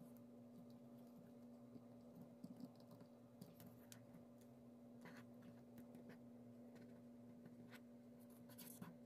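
Faint, scattered clicks and taps of small plastic parts being handled: a grapple gun accessory is fitted into a plastic action figure's hand. A steady low hum runs underneath.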